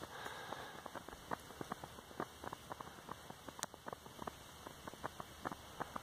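Faint, irregular crackling and ticking from a lost-foam sand flask just poured with molten silicon bronze, which is still glowing in the pour cup. There is one sharper click about halfway through.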